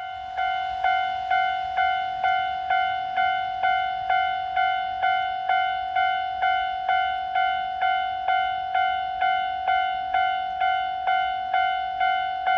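Japanese level-crossing warning bell ringing at an even pace of about two strikes a second. Each strike is a bright ringing tone that carries over into the next, signalling that a train is approaching.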